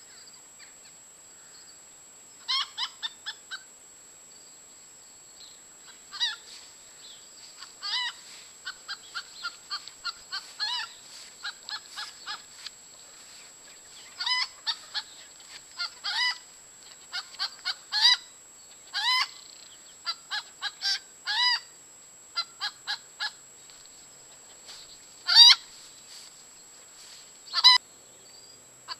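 Hens giving the severe alarm note: runs of quick, short clucks broken by louder, drawn-out squawks, repeated over and over with short pauses between.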